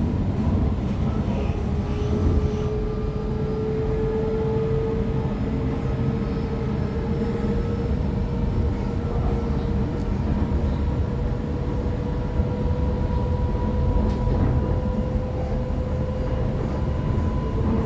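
Inside a Sydney Trains Waratah electric multiple unit running between stations: a steady rumble of the wheels on the track, with the traction motors' whine climbing slowly in pitch.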